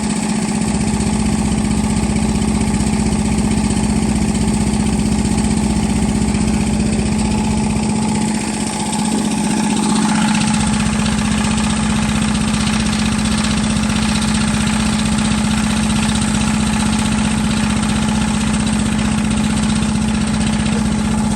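Drilling rig engine running steadily at idle, an even mechanical hum that thins briefly in the low end about eight seconds in.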